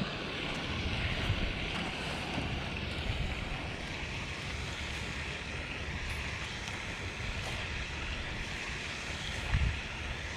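Wind buffeting the microphone: a steady rushing noise with a low rumble and a short louder low bump near the end.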